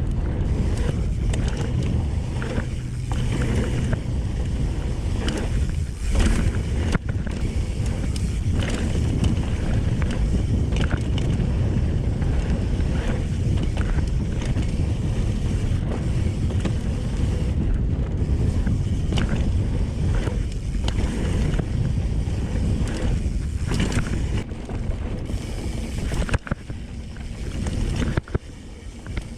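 Mountain bike running fast down a dirt trail, heard on a helmet or chest camera: wind buffeting the microphone over a constant tyre rumble, with sharp knocks and rattles of the chain and frame over bumps. It gets quieter near the end, with a few clicks.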